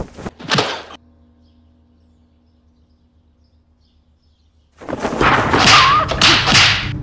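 Fight-scene sound effects: two quick swishes at the start, then a few seconds of low hum with a faint steady tone. From about five seconds in comes a rapid run of loud whooshes and strike hits as the fighter throws punches and kicks.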